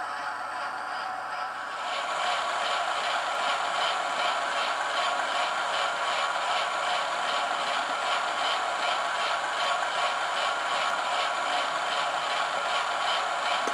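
Hornby class 08 model shunter running with a TTS sound decoder, playing a diesel engine sound through its small speaker as a steady, evenly repeating beat. It gets louder about two seconds in.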